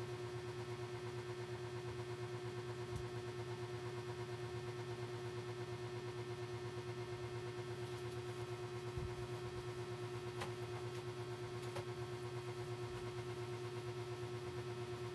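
A steady mechanical hum with a fine, even pulsing, and a few faint clicks.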